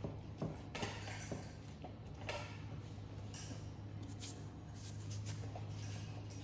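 Soft rustles and light knocks of hands working and stretching soft somsa dough on a table, the rustles coming about once a second, over a steady low hum.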